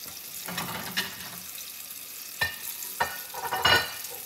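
Apple fritters deep-frying in a pot of oil, a steady sizzle. A few sharp clicks and rustles come over it: one about a second in, two around the middle, and the loudest near the end.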